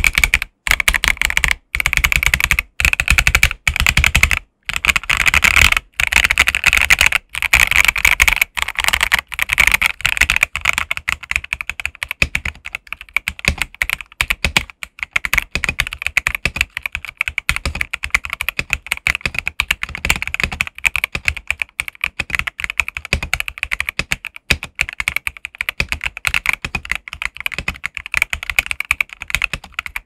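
Feker IK75 V3 gasket-mount mechanical keyboard with a polycarbonate plate being typed on quickly in a typing test: a continuous stream of keystroke clacks. There are a few brief pauses in the first seconds, and the typing is a little softer in the second half.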